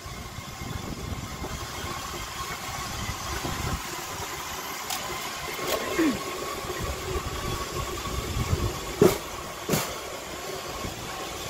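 Pedal rail bike rolling along the track: a steady rumble of steel wheels on rail, with a few sharp clicks about five and nine seconds in.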